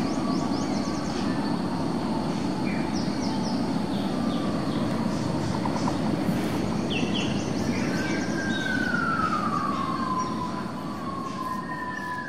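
Tropical forest ambience: a steady high insect drone and scattered short bird chirps over a low steady rush. About eight seconds in, a bird gives a long whistle that falls in pitch, and a second falling whistle comes near the end.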